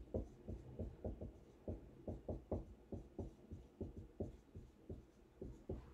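Marker writing on a whiteboard: an irregular run of faint, short taps and strokes, a few each second, as the letters go down.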